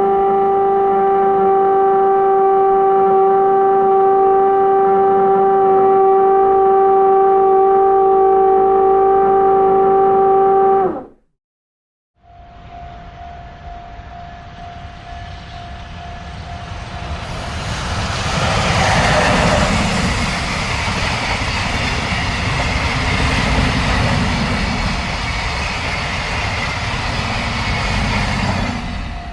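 A train horn holds one long steady blast for about eleven seconds and then cuts off abruptly. After a second of silence, the rumble and rail noise of a train grows louder, with a steady horn tone running through it. The noise peaks about six seconds in, stays loud, and drops away near the end.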